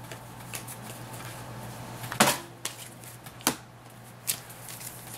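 Trading cards being handled and set down on a stack on a wooden desk: a few light taps and clicks, the sharpest about two seconds in, over a low steady hum.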